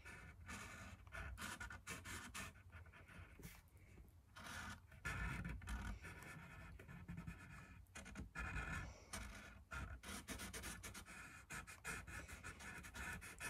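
Felt-tip marker scratching faintly in quick, short strokes on a hockey stick shaft as the printed lettering is traced over.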